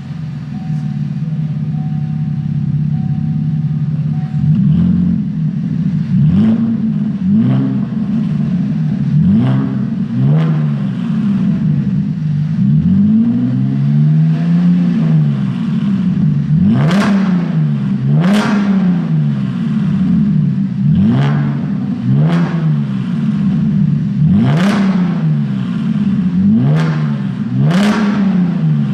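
Chevrolet Camaro V6 exhaust fitted with an H40 sport muffler: the engine idles for about four seconds, then is revved again and again, about fifteen short blips that rise and fall back to idle, with one longer rev in the middle.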